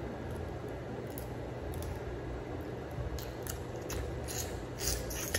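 Cooked blue crab shells being cracked and picked apart by hand: sharp snapping clicks, sparse at first and bunching up in the second half.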